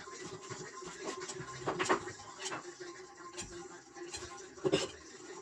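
Scattered clicks and knocks over a steady low hum, with two louder knocks, one about two seconds in and one near the end.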